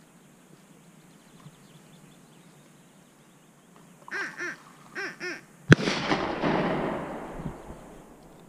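Two pairs of duck quacks from a duck call, then a single gunshot about half a second later that echoes for about two seconds: the call and shot that signal a marked fall for the retrieving dog.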